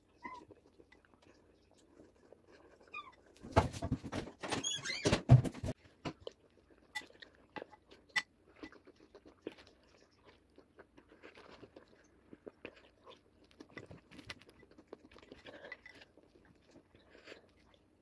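Crunchy cereal being chewed close to the microphone, with a plastic spoon clicking and scraping in a ceramic bowl. The loudest crunching and clicks come about four seconds in, followed by quieter, scattered chewing.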